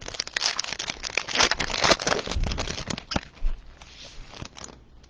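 Foil trading-card pack wrapper being handled and torn open by hand: a dense run of small crinkles and crackles that dies away near the end.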